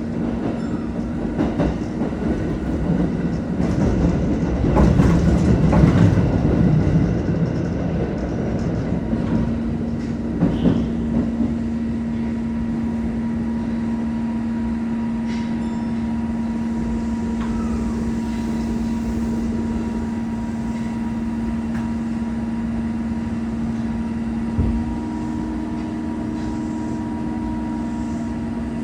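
Osaka Metro Chuo Line train heard from inside the car: wheel noise with scattered clicks over the first several seconds, then settling at about nine seconds into a steady electrical hum. A single thump comes near the end.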